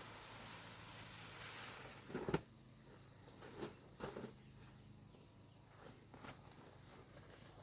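Insects singing in a steady, high-pitched drone, with a few light knocks scattered through it.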